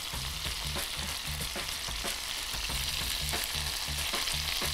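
Butterflied shell-on prawns frying in hot oil in a pan, with a steady sizzle. Scattered light clicks and scrapes come from a spatula and fork turning them in the pan.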